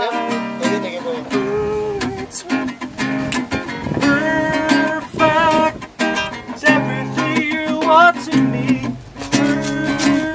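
Acoustic guitar strummed in a steady rhythm of chords, with a voice singing a melody along with it.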